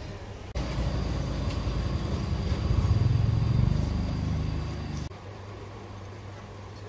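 A motor vehicle engine running with a low, rapid pulsing that grows louder to a peak about three seconds in and then eases off. It cuts in and cuts out abruptly, about half a second and about five seconds in, with a thin steady high tone over it.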